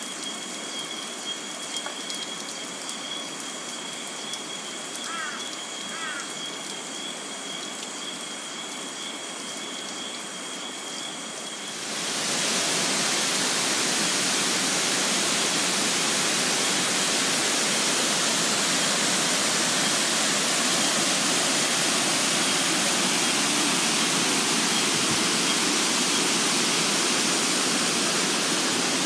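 Water trickling and dripping down a mossy rock face, under a steady high-pitched tone, with a few short chirps about five to six seconds in. About twelve seconds in this gives way abruptly to the heavy, even rush of the Hiji Falls, an 85-foot waterfall, which is markedly louder and steady.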